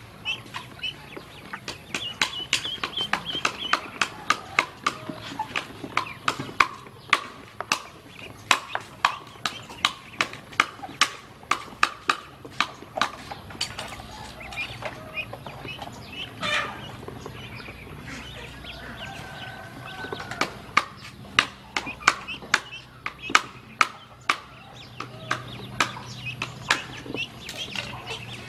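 Ducklings swimming and dabbling in a plastic basin of water, giving short high peeps now and then over a steady run of sharp clicks and taps, about two or three a second.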